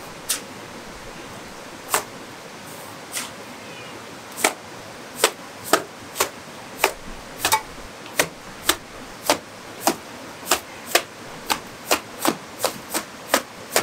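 Repeated sharp knocks of a hand tool during masonry work. A few come spaced out at first, then about two a second.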